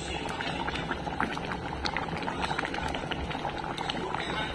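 Thick asam pedas fish curry simmering in a pan, its sauce bubbling with a steady patter of small pops.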